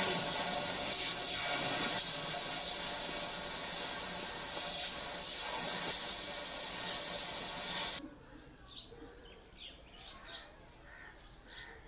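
A steady hissing noise from the restoration work that cuts off suddenly about eight seconds in. Faint bird chirps follow.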